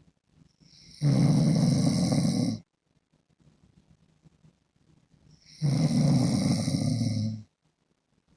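A sleeping man snoring: two loud snores, each about a second and a half long, about four and a half seconds apart, with quiet breathing between them.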